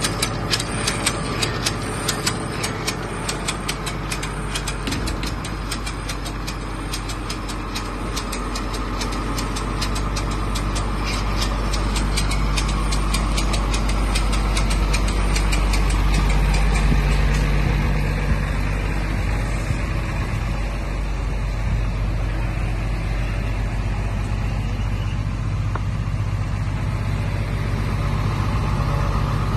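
Engine of an XCMG XZ420E horizontal directional drilling rig running steadily. A fast, regular ticking lies over it for about the first ten seconds and then fades. The engine grows louder around the middle and then holds steady.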